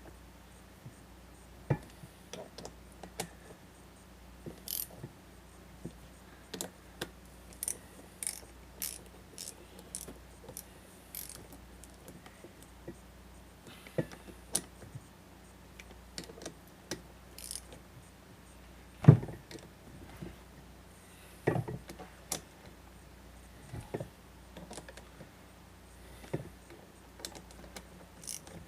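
Metal tools and parts being handled during ATV axle work: scattered clinks and taps, with a heavier knock about 19 seconds in and another about two seconds later.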